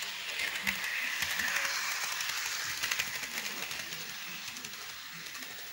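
HO scale model diesel locomotive running along sectional track: a steady whirring rattle full of rapid fine clicks, loudest as it passes close, then slowly fading.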